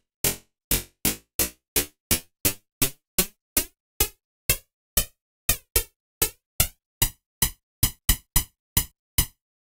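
Synthesized snare drum made from white noise shaped by a fast-decaying envelope, with a low-pass filtered body and a high-pass filtered snap, struck over and over about two to three times a second. Each hit is short and crisp.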